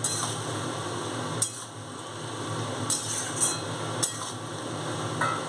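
Metal spatula stirring a simmering prawn and vegetable curry in a metal wok, with a steady sizzling hiss from the pan. It knocks against the wok about half a dozen times.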